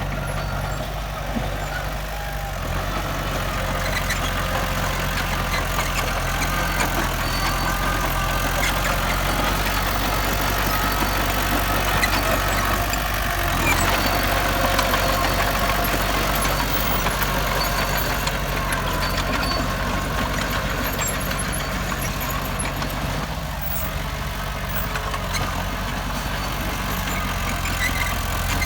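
Diesel engine of heavy earth-moving machinery running steadily, with fainter higher whining and squealing above the engine hum.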